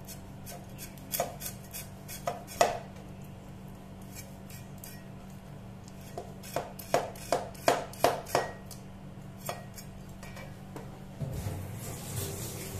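Cleaver chopping small red onions on a wooden chopping board, the blade knocking against the wood: a few scattered chops at first, then a quick run of about eight chops in the middle. A steady noise starts near the end.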